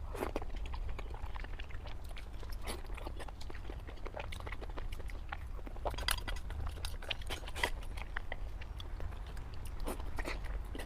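A person chewing and biting food close to the microphone, with irregular sharp clicks of mouth and teeth over a steady low hum.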